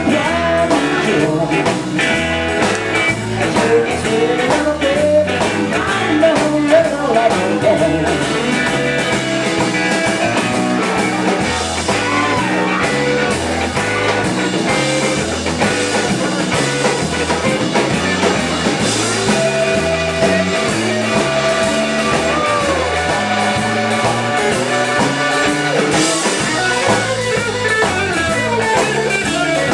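A blues-rock trio playing live on electric guitar, electric bass and drum kit, with the electric guitar taking a lead line of bent notes over the rhythm section.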